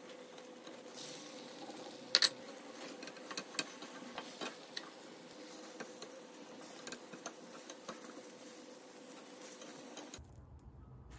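Omelette frying quietly in a non-stick pan while a silicone spatula scrapes and taps the pan as the egg is folded and rolled. Scattered light clicks, the sharpest a double clack about two seconds in.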